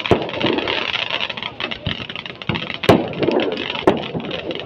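Ground fireworks crackling continuously, fountain fireworks spraying sparks, with three sharp firecracker bangs: one at the start, the loudest just under three seconds in, and another about a second later.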